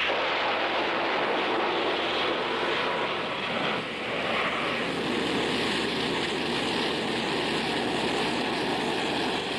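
Steady roar of an aircraft engine in flight, dipping briefly about four seconds in.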